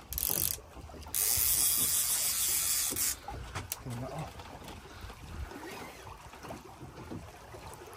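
A short hiss, then a louder hiss of about two seconds, followed by the low slap and trickle of sea water around a small boat.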